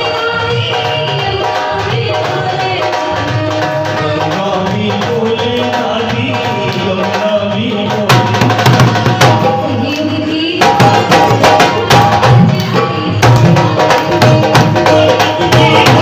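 Instrumental interlude of a Hindi devotional bhajan: a melody line over hand-drum accompaniment, the drumming turning louder and busier about halfway through.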